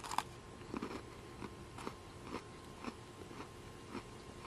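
A crisp Coca-Cola Oreo sandwich cookie bitten off with a sharp crunch at the start, then chewed with short, soft crunches about twice a second.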